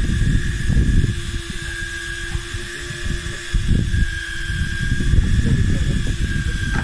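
Wind buffeting the microphone on an open boat at sea, a gusty low rumble that swells and drops, over a steady high-pitched whine.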